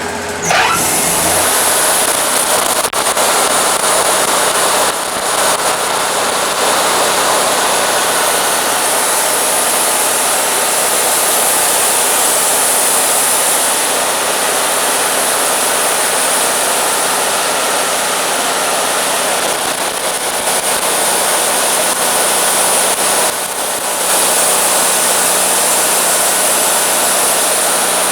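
Wood-Mizer LT40 band sawmill running, its band blade cutting a skim cut across the top of a driftwood log: a loud, steady whir with a falling whine just after the start and a brief dip in level about 23 seconds in.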